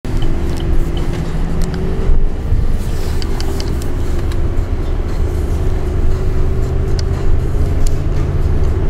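Road and engine noise inside a moving car's cabin: a steady low rumble with a faint steady whine, and a few light ticks.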